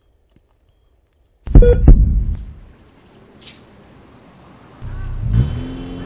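A single deep boom about a second and a half in, dying away within a second. Near the end, road traffic comes in, with a car driving past.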